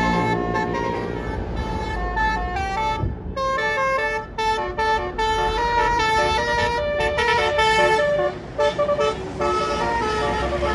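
Bus Basuri telolet horn playing a fast melody of short stepped notes, several horn tones sounding together, over the low rumble of the bus's engine.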